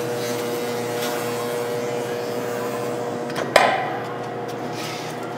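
Resistance seam welder running a weld on wire: a steady hum, cut off about three and a half seconds in by a single sharp clack and a brief fading hiss as the machine stops.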